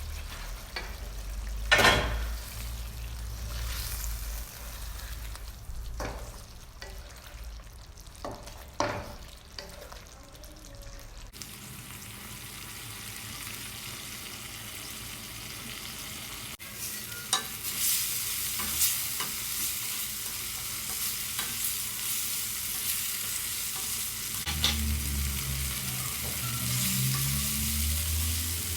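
Chicken saag frying in a pan while being stirred, the spatula knocking against the pan. A steady sizzle sets in about a third of the way through, with further scrapes and knocks over it.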